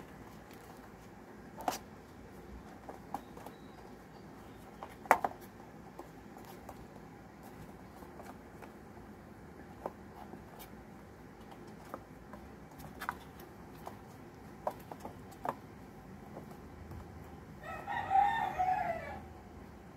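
A drawn-out animal call about a second and a half long near the end, over scattered light clicks and taps.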